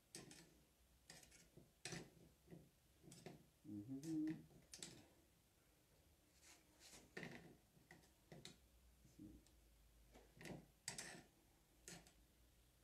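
Faint, scattered clicks and taps of kitchen tongs against a bowl and a plate as strawberries are picked up and dipped in syrup. A brief low murmur of a voice about four seconds in.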